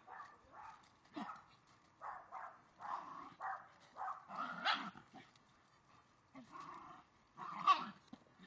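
An Australian shepherd and a cairn terrier play-fighting, giving a run of short barks and yips, the loudest near the end.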